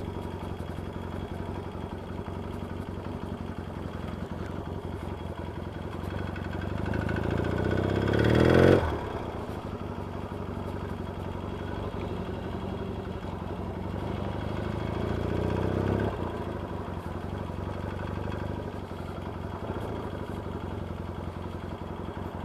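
Yamaha XS650 parallel-twin engine running under way, rising in pitch twice as it accelerates, about 9 and 16 seconds in, each time dropping off sharply. The engine has a tapping noise that the owner puts down to a worn little end on the crank, or perhaps worn rockers or tappets.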